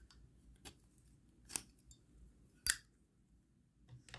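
Zippo lighter being handled: three sharp metallic clicks, the last two the loudest and about a second apart.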